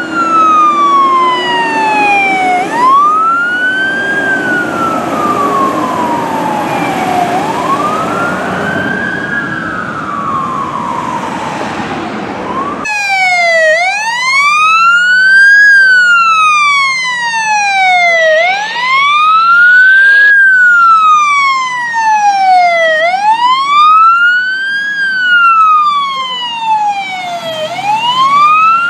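Fire truck siren wailing, its pitch rising and falling in slow cycles about every five seconds, over the rumble of traffic and engine. About halfway through, the sound cuts to another siren with the same wail and little rumble beneath it.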